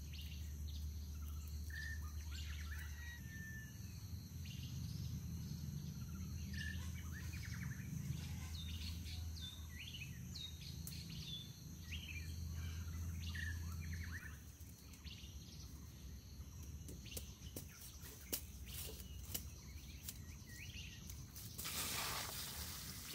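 Birds chirping in woodland over a steady low rumble that drops away about two-thirds of the way in. Then come a few sharp knocks and, near the end, a brief rush of scraping noise.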